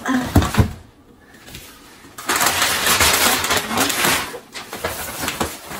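A few low thumps as a large boxed gift is set down, then about two seconds of loud rustling and scraping from gift packaging being handled.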